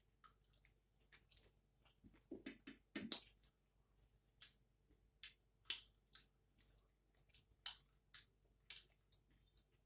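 Close-miked eating sounds: irregular soft mouth clicks, lip smacks and chewing as people eat buckwheat roti and chicken by hand, with a few louder knocks around two to three seconds in.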